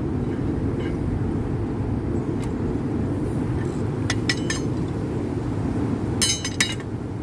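A few sharp, ringing metallic clinks of steel blacksmith tongs and tools being handled: one, then a quick cluster of three, then two more near the end. They sit over a steady low rumble.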